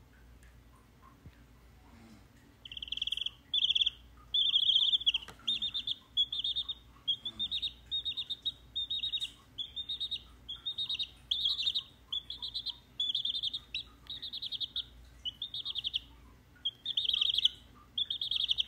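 A baby chick chirping in short trilled bursts, over and over, starting about three seconds in.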